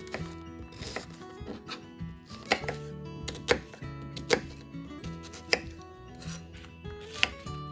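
Chef's knife chopping a red onion on a wooden cutting board: irregular sharp knocks of the blade meeting the board, the strongest roughly once a second among lighter cuts. Soft background music runs underneath.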